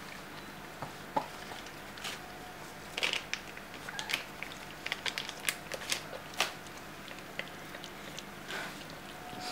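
Lhasa Apso mother licking and chewing at her newborn puppy to clean it: a scatter of short wet clicks, smacks and crackles, busiest in the middle of the stretch.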